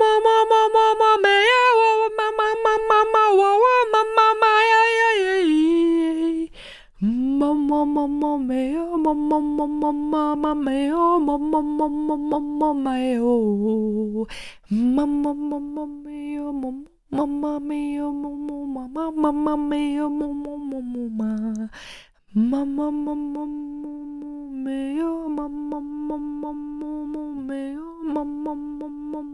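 A woman singing unaccompanied in a soft, humming style on wordless syllables like "ma, mo, mi". Long held phrases that glide down at their ends, broken by brief pauses for breath; the first phrase is pitched higher than the rest.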